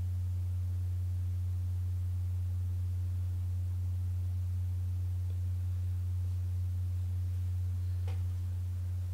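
A steady low-pitched hum, one unchanging tone that stays at an even level throughout, with a faint short sound about eight seconds in.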